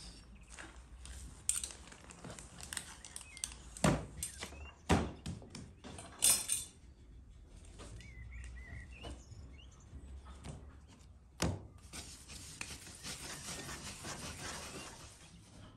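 Dough scraper scraping soft bread dough from an enamel basin and chopping it on a wooden board, with several sharp knocks of the blade on the board and basin. Near the end, a steady rubbing hiss of hands rounding dough balls on the board. Birds chirp faintly.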